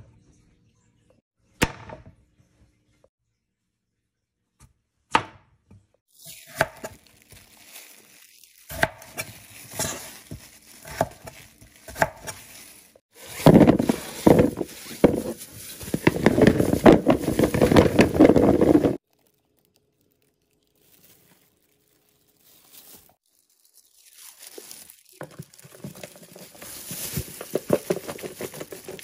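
Raw potatoes being cut into wedges with a knife on a cutting board: separate knocks at first, then a run of cuts and scrapes. Partway through, a loud stretch of clatter as the wedges slide off the board and tumble into a bowl, then softer rustling near the end.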